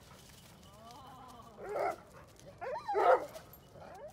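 Two chocolate Labradors whining and barking excitedly at a squirrel out of reach. Faint wavering whines come first, then a short bark just before two seconds in, and the loudest, yelping bark near three seconds.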